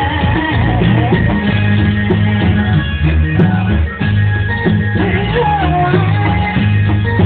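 Live reog troupe music, loud and continuous: heavy drums keep a steady beat under a bending high melody line, heard near the start and again about five seconds in.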